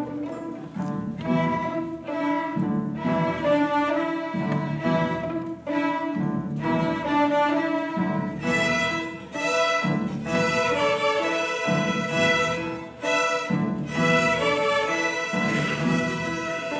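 A school string orchestra playing a piece: bowed violins carrying the melody over a lower string part that moves in steady beats.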